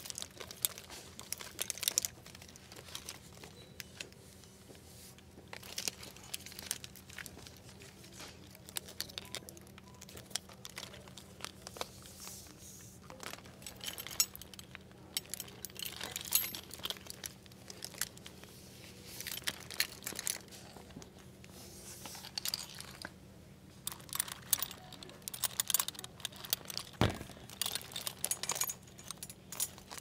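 Belts being handled on a store display rack: plastic belt hangers clicking and rattling against one another, with metal buckles and a chain belt jingling, in irregular flurries of small clicks and rustles over a steady low hum. One dull knock comes near the end.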